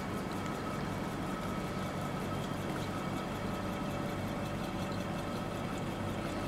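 Model Stirling hot-air engine driving a small fan, running steadily with a continuous mechanical whir.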